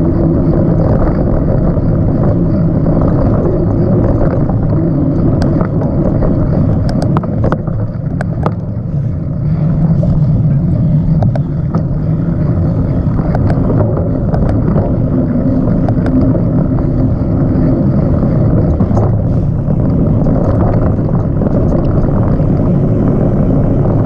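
Mountain bike riding over a dirt trail: a steady loud rumble of wind on the camera's microphone and knobby tyres rolling on hard-packed dirt, with scattered clicks and rattles from the bike over the bumps.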